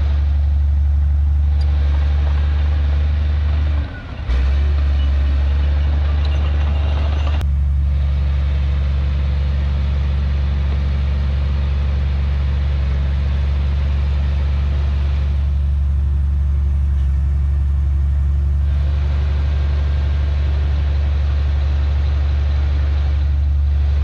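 Heavy diesel earthmoving machinery running steadily, a deep constant drone, with a brief dip about four seconds in.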